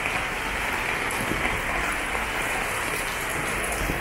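Steady rain, an even hiss of drops falling and splashing on hard wet paving.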